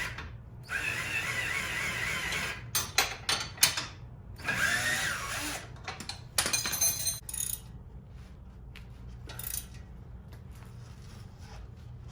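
Handheld power tool run in short bursts, driving fastener bolts while a car's lower control arm is fitted, with a few sharp clicks between the bursts.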